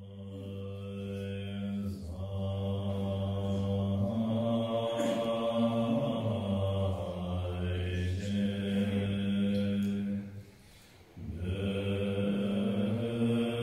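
Tibetan Buddhist monks chanting a liturgy in unison in deep, steady held notes. The chant drops away for about a second near ten seconds in, then resumes.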